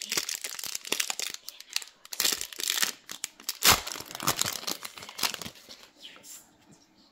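Foil trading-card pack wrapper crinkling and tearing as it is pulled open, with one sharper snap about halfway through. The crackle thins out near the end as the cards come out of the pack.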